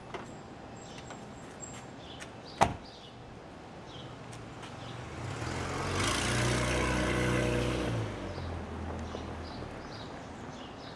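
An Acura car door slams shut once, sharply, about two and a half seconds in. Then a car passes along the street, its engine and tyre noise swelling and fading over about five seconds.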